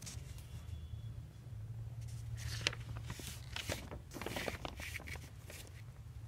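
Paper rustling and crackling as a printed exam question booklet is opened and its pages handled, in a run of short rustles from about two seconds in until near the end, over a steady low hum.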